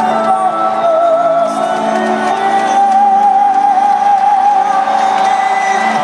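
Amplified singing echoing through an arena, settling into one long wavering held note, with scattered whoops and shouts from the crowd.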